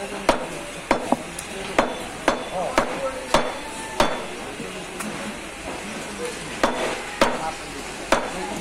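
A large butcher's knife slicing beef on a wooden log chopping block, the blade knocking sharply on the wood with each cut. There are about a dozen uneven strikes, with a pause of a couple of seconds in the middle.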